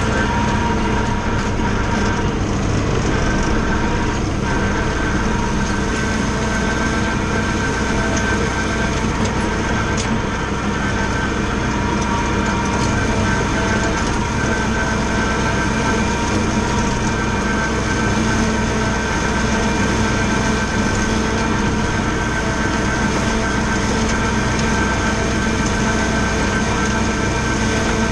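Valtra A93 tractor's four-cylinder diesel running steadily under load, driving an Agrimaster KP 2600 flail mower that is cutting grass. A constant rumble with a few steady whining tones.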